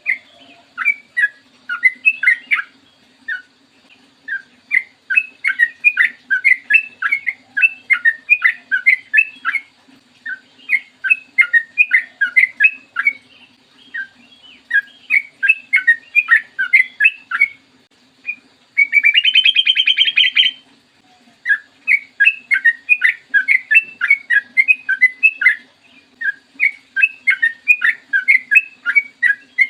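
Yellow-vented bulbul (trucukan) singing long runs of quick, bubbling phrases with short pauses between them. About two-thirds of the way in there is a louder, harsh buzzing trill lasting about a second and a half. A faint steady hum sits underneath.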